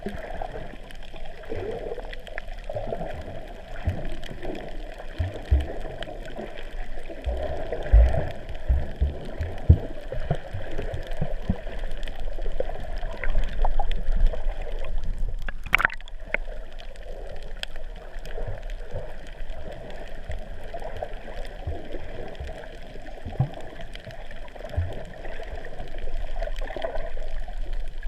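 Muffled underwater water noise picked up by a GoPro in its waterproof housing: steady gurgling and sloshing, with a few low knocks between about five and ten seconds in and one sharp click about sixteen seconds in.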